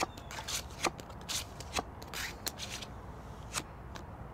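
Playing cards being dealt from a card shoe and flicked face-up onto a wooden table: a series of short, crisp card snaps, several about half a second apart and then more spread out, with a soft sliding sound around the middle.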